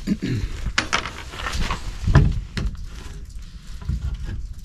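Scattered light metallic clinks and rattles with a few dull knocks, from handling metal fasteners and wooden framing lumber by hand.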